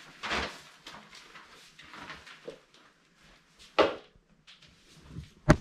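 A few scattered knocks and clatters, like things being handled or a drawer or door being moved, with a loud knock a little before the last second and a sharp, loud one near the end.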